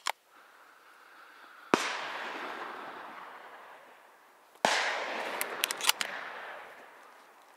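Two shotgun shots about three seconds apart, each followed by a long rolling echo that dies away over a couple of seconds; a few sharp clicks come just after the second shot.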